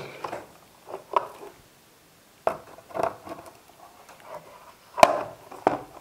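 A metal YouTube Silver Play Button plaque knocking and clicking against the plastered wall and its nail as it is shifted by hand to straighten it: a few separate light knocks, the sharpest about five seconds in with another just after.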